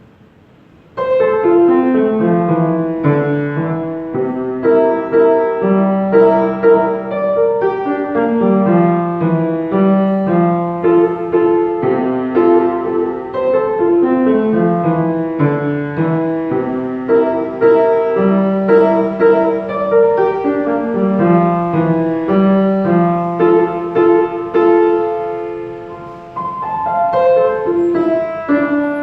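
Solo piano playing a flowing melody over a moving bass line, starting about a second in.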